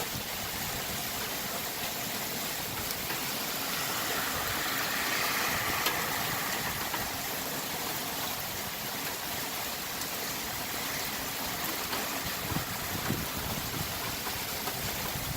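Heavy thunderstorm downpour with flash floodwater running: a steady rushing hiss that swells for a few seconds around the middle.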